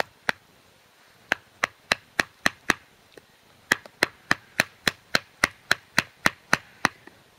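Wooden baton knocking on the spine of a Helle knife, driving the blade down into a spruce spoon blank to split pieces off along the handle. Sharp knocks at about three to four a second, in two runs with short pauses about a second in and again about three seconds in.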